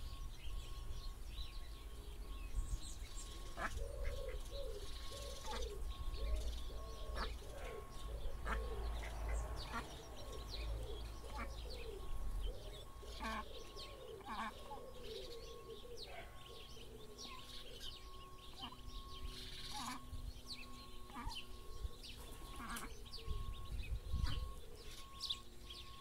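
Ducklings peeping in short high chirps, with a run of repeated low calls from an adult bird partway through.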